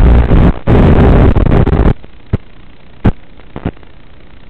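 Hiss from an analog FPV video receiver's audio channel. It is loud, with brief dropouts, while the video signal is breaking up, and drops to a low hiss about two seconds in as the signal clears. A few sharp pops follow.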